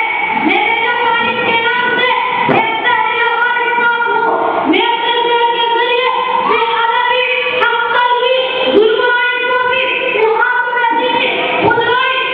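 Unaccompanied solo singing through a microphone and loudspeakers, the voice gliding between held notes, with a steady hum running under it.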